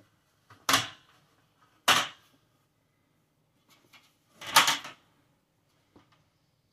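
Aluminium tube frame and plastic end pieces of a Camco 51891 folding table clacking together as it is folded up. Two sharp clacks come about a second apart early on, then a longer, louder rattle near five seconds, with a few light clicks between.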